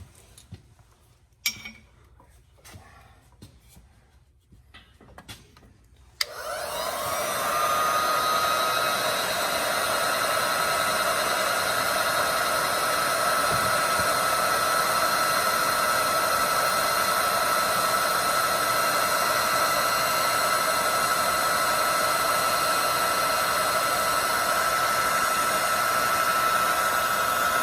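A few faint clicks of handling, then about six seconds in an electric heat gun switches on: its fan spins up and settles into a steady blowing whine, heating heat-shrink tubing over a crimped wire joint.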